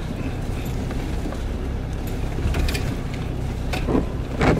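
Off-road 4x4's engine running low and steady, heard from inside the cabin as the vehicle crawls down a rocky, slippery track, with a few short knocks and thumps as it jolts over the rocks, the loudest near the end.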